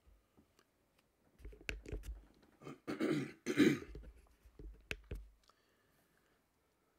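A man clearing his throat, two rough bursts in the middle, with a sharp click shortly before and another shortly after.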